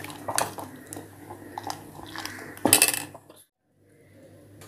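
Steel spoon stirring custard milk in a stainless steel pot, scraping and clinking against the pot's sides and bottom, with one louder clank near three seconds in. The sound then cuts off suddenly for a moment.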